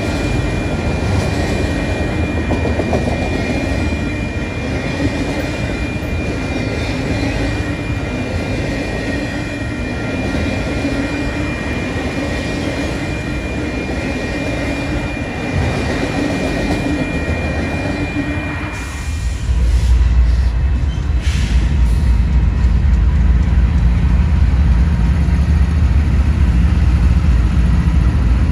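A train rolling past on the rails, a dense rolling noise with a steady high wheel squeal over it. About two-thirds of the way through, the squeal stops and a deep, steady rumble of a diesel locomotive's engine takes over, louder than before.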